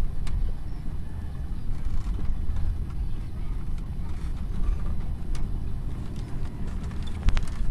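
Wind buffeting the microphone: a low, uneven rumble, with a few faint clicks near the end.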